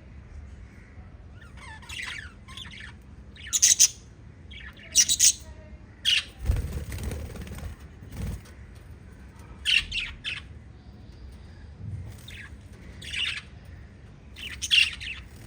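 Lovebirds giving short, sharp chirps and squawks in scattered bursts, several at a time. A low rustling thud comes about halfway through.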